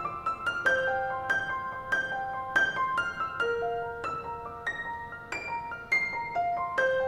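Background music: a piano melody of single struck notes, about three a second, each ringing on and fading.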